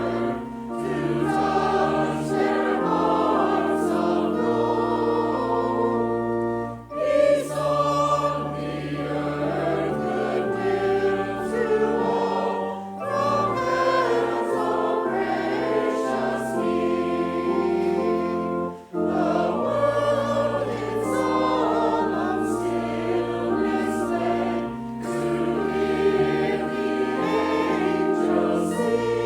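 Choir singing in long held phrases, with brief breaks between phrases about seven and nineteen seconds in.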